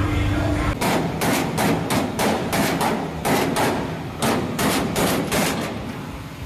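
Repeated hammer blows, about three or four strikes a second for some five seconds, with a short break about two-thirds of the way through, during work on a pickup cab's floor.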